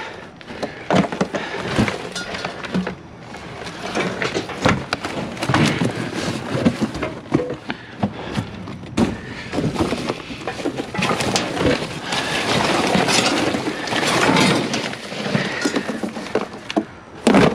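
Scrap wire and metal junk being pulled out and thrown around inside a metal dumpster: irregular clattering, thunks and rustling, some knocks sharp and loud.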